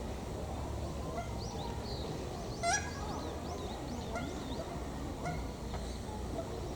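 Birds calling: a scatter of short call notes, with one louder call about three seconds in, over a steady low rumble.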